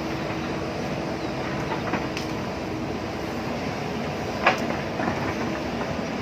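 JCB backhoe loader's diesel engine running steadily while it works the hillside, with a few sharp knocks, the loudest about four and a half seconds in.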